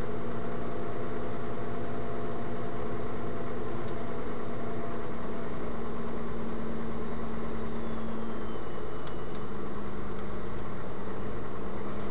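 Steady engine and road noise of a slow-moving vehicle, heard inside its cab. A low hum runs throughout and dips slightly in pitch about eight and a half seconds in.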